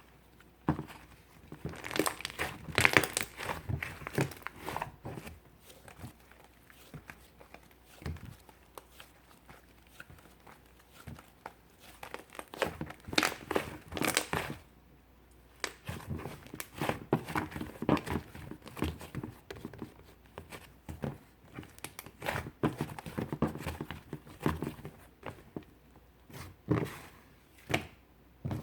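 Slime being squeezed, stretched and pressed by hand, giving irregular sticky crackles, pops and crinkles in clusters with short quieter pauses between.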